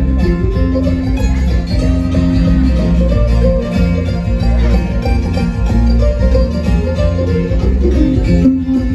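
A bluegrass band playing live, with acoustic guitars, mandolin, fiddle and bass guitar all going together over a steady bass line.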